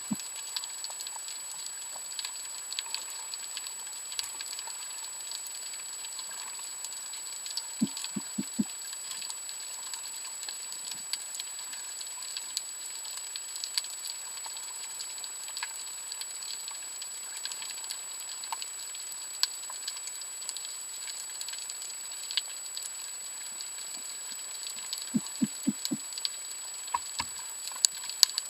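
Underwater reef ambience heard through a camera housing: a steady hiss with many scattered faint crackling clicks and a thin steady high tone. Twice, about eight seconds in and again near the end, a short run of four quick low knocks.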